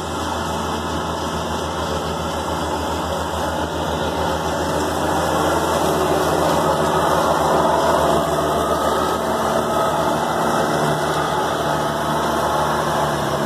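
Kubota B7800 compact tractor's diesel engine running steadily under load, with its 72-inch belly-mounted mower deck engaged and cutting tall grass.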